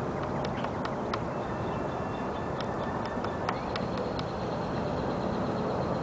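Woodpecker pecking at a wooden utility pole: a series of single, sharp taps spaced unevenly rather than a fast drumroll, bunched near the start and again in the middle, over a steady background rush.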